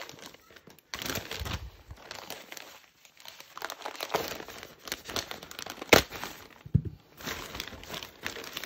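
Crinkling and tearing as a mailing package is opened by hand, in irregular bursts, with a sharp click about six seconds in.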